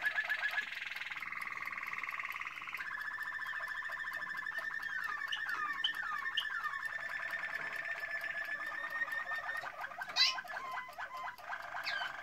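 Domestic canaries singing: an unbroken song of rapid trills and rolls that switches to a new trill every few seconds. A run of falling whistled notes comes in the middle, and a short sharp high note about ten seconds in.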